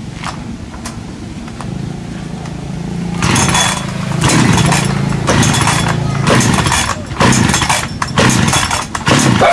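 Chainsaw engine running at a steady pitch, then from about three seconds in growing louder in repeated surges as it cuts into firewood.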